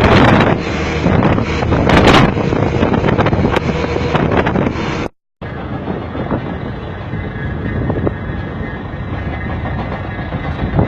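Heavy construction machinery running: a loud, dense engine noise with wind on the microphone. About five seconds in, the sound cuts out for a moment and comes back as a steadier, slightly quieter machine noise.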